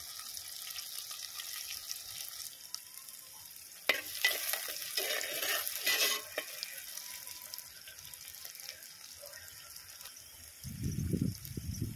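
Shallots, garlic and curry leaves sizzling in hot oil in a clay pot. About four seconds in, a spoon clatters and scrapes in the pot for a couple of seconds. Low rumbling sounds come near the end.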